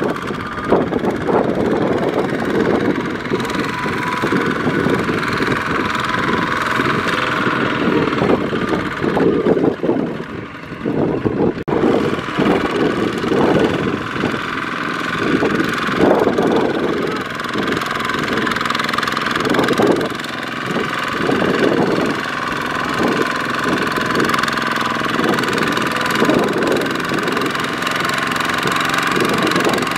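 Single-cylinder diesel engines of Kubota RT140 walk-behind power tillers running under load, with a steady pulsing beat, as the tillers struggle to pull a loaded trailer through mud. The level dips briefly about ten seconds in.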